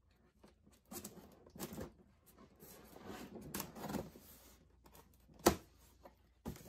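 Utility knife slitting the tape along the seam of a foam shipping box, in a series of short scraping strokes, with one sharp knock about five and a half seconds in.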